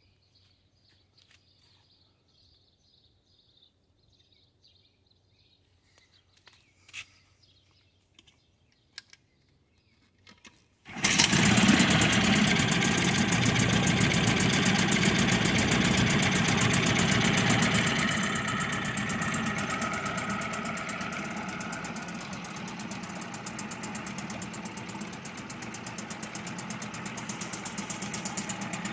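A few faint clicks over near quiet, then about eleven seconds in a 1966 Mercury Merc 39 single-cylinder two-stroke outboard starts abruptly and runs fast with its lower unit in a tub of water. About seven seconds later it settles to a lower, steady idle.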